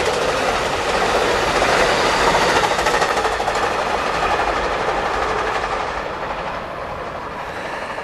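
Amtrak Surfliner passenger train passing at speed, its coaches rolling by with a dense rush of wheel and rail noise and fast clicking of wheels over the rails. The noise dies down over the last couple of seconds as the train goes past.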